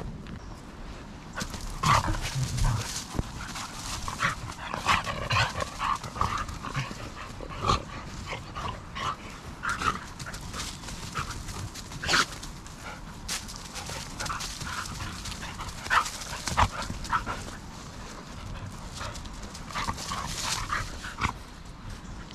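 A dog making a string of short calls, some spaced out and some in quick runs, along with a few clicks and knocks.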